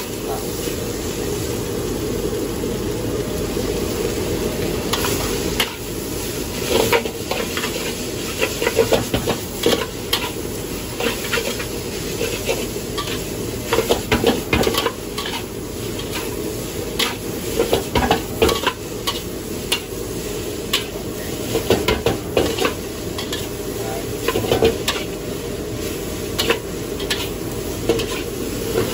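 Metal spatula scraping and clanking against a wok while noodles are stir-fried and tossed, with sizzling over a steady low rush. The clanks come thick and fast from about five seconds in.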